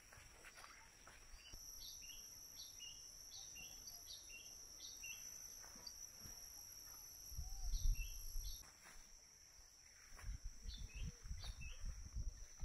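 Rural outdoor ambience: insects keep up a steady high drone while a bird gives short chirps, over and over. Bursts of low rumble come in about halfway through and again near the end.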